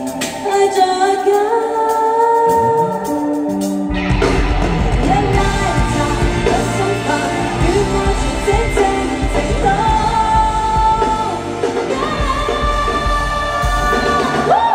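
Live pop concert performance: female voices singing over the song's backing track. For the first four seconds the voices sing over a sparse accompaniment, then the full beat and heavy bass come in.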